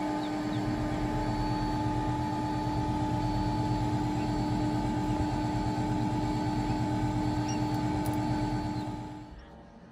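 Steady motor hum of an egg incubator running, with faint short high peeps repeating about every two-thirds of a second; the hum fades out near the end.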